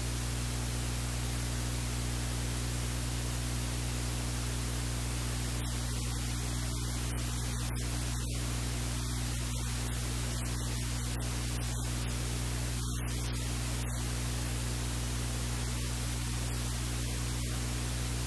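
Steady hiss of static with a low electrical hum, unchanging throughout.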